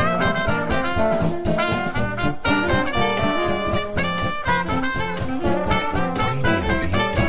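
Upbeat brass-led jazz band music with a steady dance beat, the soundtrack to the dancing elves.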